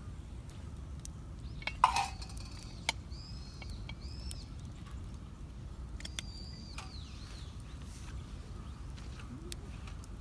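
A sharp metallic clank with a short ring about two seconds in, followed by a few light clicks, as metal camp cookware is handled. A bird calls several times in short arching whistles.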